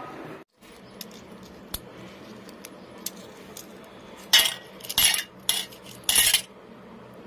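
A spoon clinking and scraping against a stainless-steel bowl: a few light taps, then about four louder scrapes in the second half.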